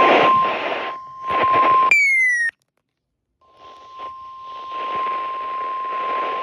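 NOAA Weather Radio warning alarm tone, a steady single 1050 Hz tone, received over a radio with heavy static hiss. About two seconds in it breaks off with a short falling beep and a second of silence, then the tone comes back over the static.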